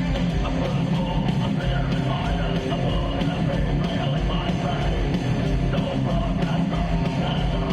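Melodic death metal band playing live at full volume: distorted electric guitars, bass and pounding drums, with harsh screamed vocals over the top.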